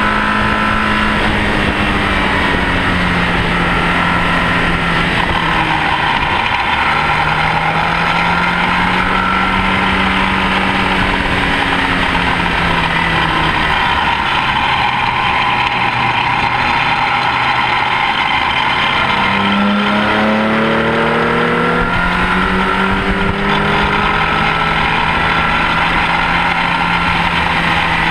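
Rover K-series VVC four-cylinder engine in a Mini at racing speed. The revs climb and fall back through gear changes, with a sharp drop and steep climb about two-thirds of the way in. Heavy wind and road noise run under it.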